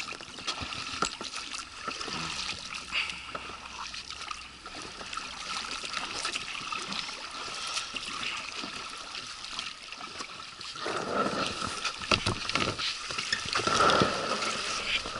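Water lapping and trickling against an inflatable PVC boat beached at the water's edge, with small splashes and clicks. In the last few seconds it gets louder with rustling and knocks as people climb out over the boat's side onto the bank.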